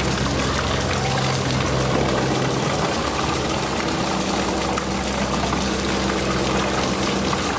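Steady rushing water with a low mechanical hum under it, the deepest part of the hum dropping away about a second in.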